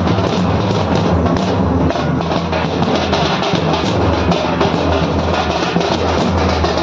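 A group of large double-headed dhol drums beaten with sticks, playing a loud, dense, steady processional rhythm.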